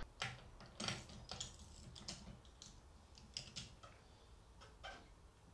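Socket ratchet wrench clicking in short, irregular runs as the nuts on the rear-wheel sprocket bolts of a motorized-bicycle kit are tightened. Faint.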